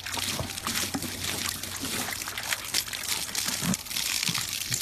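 Water splashing and sloshing in quick, uneven bursts as a horse plays in it.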